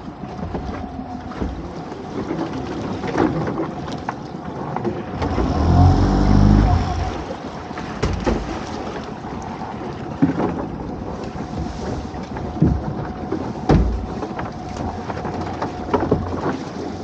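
Small fishing boat running under way: a steady engine hum with a thin steady tone over it and a loud low rumble about six seconds in. Scattered knocks and clunks come from lobster pots being handled on the gunwale and their rope running out over the side.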